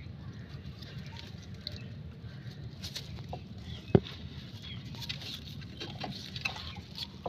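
Faint scuffling and small clicks as a golden retriever puppy noses and chews at something picked up off a concrete roof, with one sharp click about four seconds in.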